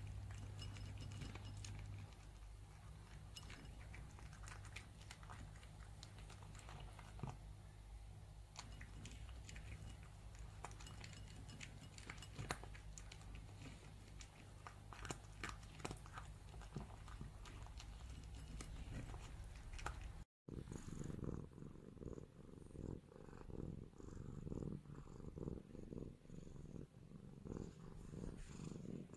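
A Li Hua tabby cat eating, with many small chewing clicks over a steady low hum. After a short break about two-thirds through, the cat purring in an even, pulsing rhythm.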